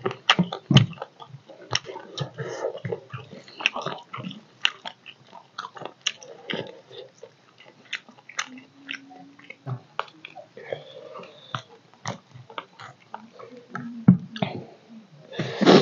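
Close-up chewing and lip-smacking of a person eating squirrel curry and rice with his hands: a steady run of short, sharp mouth smacks, with a louder burst near the end.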